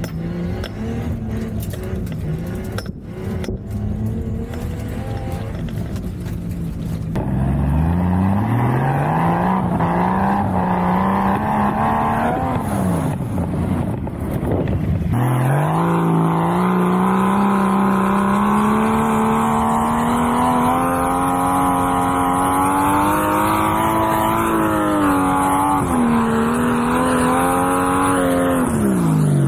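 Nissan RB20DET turbocharged 2.0-litre straight-six in a 240SX, revving hard under load. The revs climb and fall repeatedly, then a long pull is held high and drops off at the very end.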